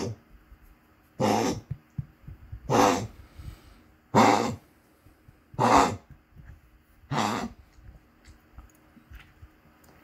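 A small Chihuahua-type dog coughing: five short, rough hacking coughs about a second and a half apart, then quiet.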